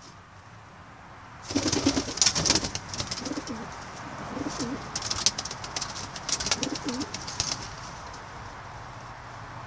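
Homing pigeons cooing. Several low coos start about a second and a half in, over a rapid clatter of clicks and rustling, and both fade out near the end.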